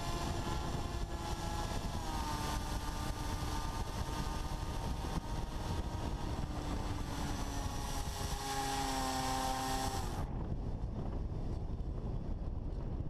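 FPV Raptor's electric motor and propeller whining in flight over heavy wind rush. The whine drops in pitch about two seconds in and grows stronger later, then cuts off suddenly near the end, leaving only wind noise.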